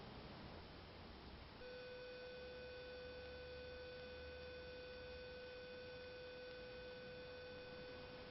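A faint, steady electronic tone with a buzzy edge, like a held beep. It comes back about a second and a half in and holds, over a low hum.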